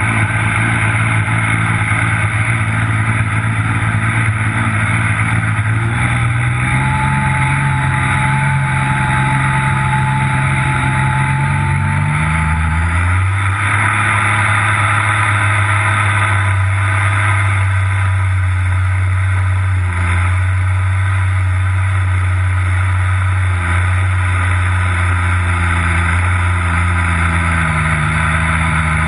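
Supercharged engine running. Its speed climbs slowly from about a fifth of the way in, with a thin high whine while raised, then drops back sharply a little before the middle and holds steady.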